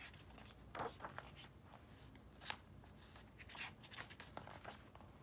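Faint paper rustling with scattered light clicks: book pages being handled and turned.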